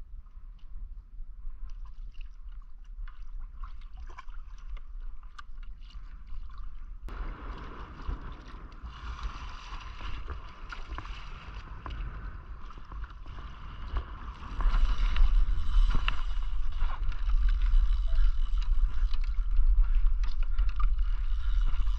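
Water rushing and splashing along a pedal kayak's hull, with wind rumbling on the action camera's microphone; the rumble and splash grow much louder about two-thirds of the way in.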